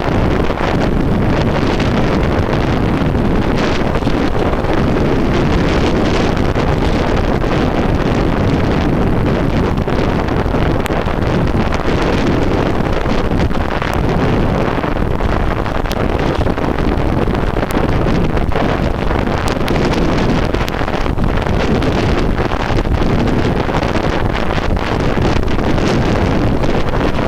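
Wind buffeting the microphone of a handlebar-mounted compact camera during a fast bicycle descent into a headwind: a loud, steady rush of noise.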